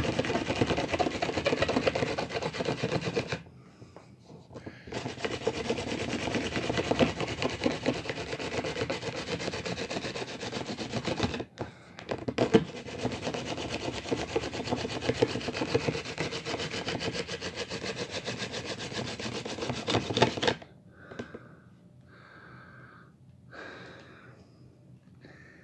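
Hand-drill friction fire: a bamboo spindle spun fast between the palms, grinding and rubbing in the socket of an ivy hearth board, which is smoking as it heats toward an ember. The rubbing breaks off briefly a couple of times and stops about twenty seconds in.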